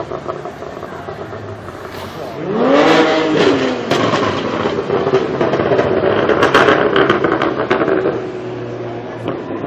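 A tuned, decatted BMW 1M Coupé's twin-turbo straight-six revs up about two and a half seconds in. It then runs loud for several seconds with rapid exhaust crackles and pops, and drops back near the end.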